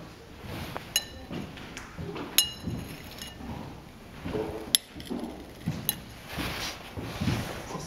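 A spoon tapping on ceramic bowls and plates, about four sharp clinks. The second clink rings on for nearly a second.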